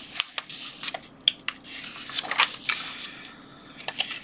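Paper pages of a paperback book rustling as they are turned and smoothed flat by hand, with a few light clicks.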